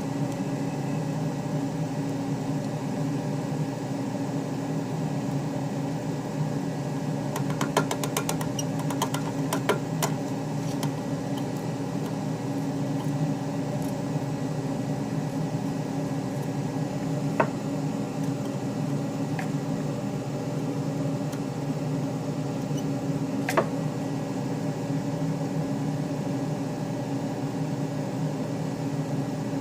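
Small hobby CNC machine running steadily while milling a circuit board, a constant motor hum. A flurry of sharp clicks comes about eight seconds in, and single sharp clicks follow later, twice.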